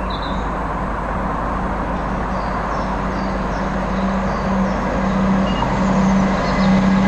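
London Midland Class 170 Turbostar diesel multiple unit approaching, the drone of its underfloor diesel engines and the rumble of the train growing steadily louder as it nears.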